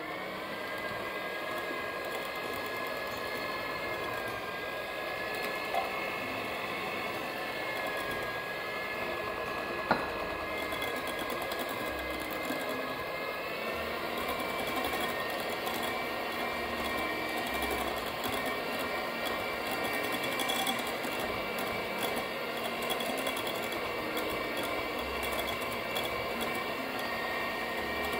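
Moulinex electric hand mixer running steadily, its beaters whipping mascarpone, powdered sugar and cream into a thick cream. The motor whine shifts pitch slightly a few times, and there is one sharp click about ten seconds in.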